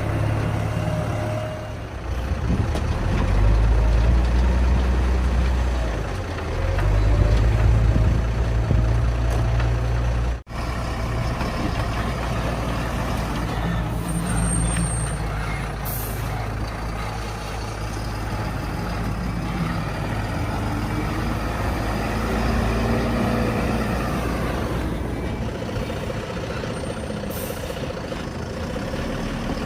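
Heavy diesel engines of a backhoe loader and a dump truck running and revving under load. The engine swells louder twice in the first ten seconds, then runs more evenly. There are two short high hisses later on.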